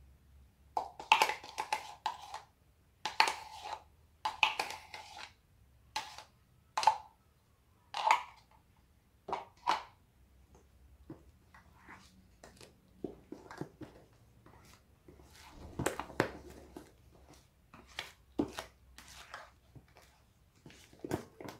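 A small plastic spoon scraping the last yogurt out of its plastic pot, in a string of short scrapes, some with a brief ring. Then a wooden spoon stirring thick cake batter in a stainless steel bowl, with many light knocks and scrapes against the bowl.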